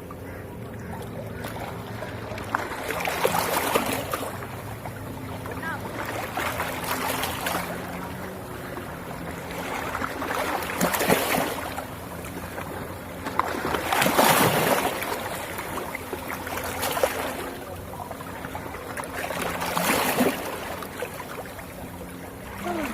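Waves washing in and drawing back in slow swells about every three to four seconds, over a steady low hum.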